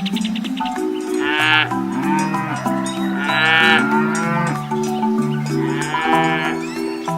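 Cattle mooing: three drawn-out calls, about a second in, past the three-second mark and near six seconds, over background music with steady mallet-like notes and a light beat.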